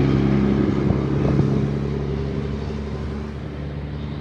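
Engine of a large road vehicle, a bus, running with a steady low hum and road noise that fades as it drives away.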